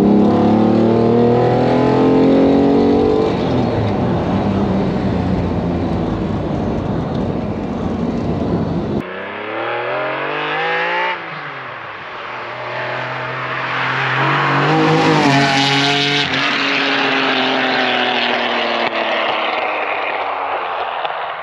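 1991 Lamborghini Diablo's V12 accelerating hard, heard from inside the cabin. About nine seconds in, the sound cuts to the car heard from outside: the engine revs up through a gear change as it approaches, sweeps past with a drop in pitch, and fades away.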